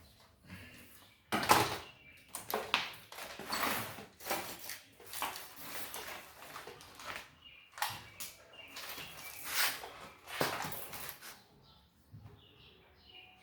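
Irregular knocks, clatters and scrapes of hard objects being handled, each short and sudden, with gaps between them. Faint short high chirps come near the end.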